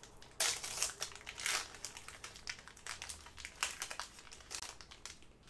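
Plastic-foil wrapper of a trading card pack being torn open and crinkled as the cards are handled: an irregular run of sharp crackles, loudest about half a second and a second and a half in.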